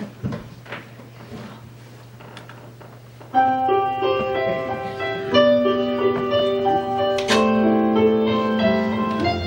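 A low steady hum with a few faint scattered sounds, then about three seconds in a piano starts playing held chords and notes as the introduction to a slow song.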